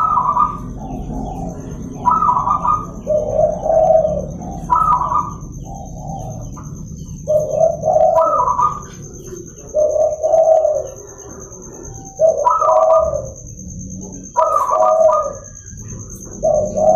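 Zebra dove (perkutut) song: a short phrase repeated about every two to two and a half seconds, each a higher opening coo followed by lower rolling coos.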